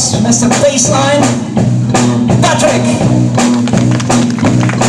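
Rock band playing live: electric bass holding low notes under a drum kit with cymbal hits, with a melody line bending above them.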